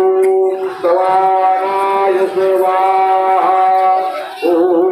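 A man singing a devotional chant in long held notes, each held for about a second, sliding to a new pitch between them.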